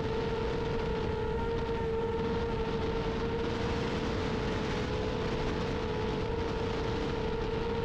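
An FPV quadcopter's brushless motors and propellers whine at one steady pitch, holding an even cruise throttle, with a constant rush of wind over the onboard camera's microphone.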